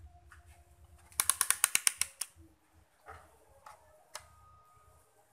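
A rapid run of about ten sharp mechanical clicks lasting about a second, followed by a few single clicks and taps.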